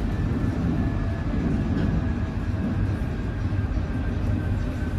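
Paris Métro line 5 train running, heard from inside the carriage: a steady rumble of wheels on rail with a faint high whine that drifts slightly lower.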